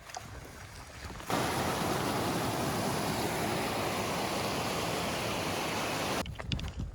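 Footsteps, then about a second in a loud, steady rush of fast-flowing stream water that starts and stops abruptly, with footsteps resuming near the end.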